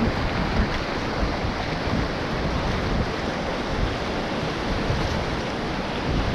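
Rushing river water around an inflatable raft, with wind buffeting the microphone in uneven low rumbles.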